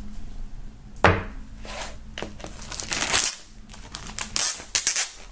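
Plastic shrink-wrap film being peeled and pulled off a vinyl record sleeve, crinkling and rustling. It starts suddenly about a second in and then comes in irregular bursts.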